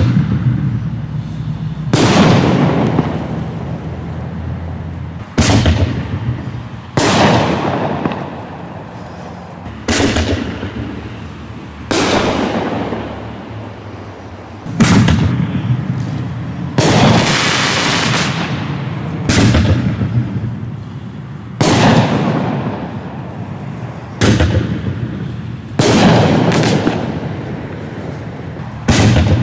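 Black Cat Magnum artillery shell fireworks being fired in succession: a sharp bang every two to three seconds, each trailing off in a fading rumble. A stretch of crackling comes near the middle.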